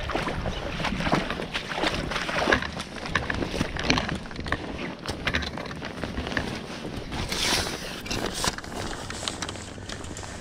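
Wind rumbling on the microphone, with irregular scuffing steps and rustling as someone moves along a muddy, leaf-strewn riverbank.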